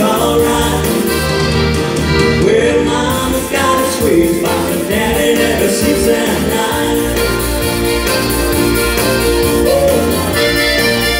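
Live country-dance music: an accordion playing the melody over keyboard backing with a low bass line.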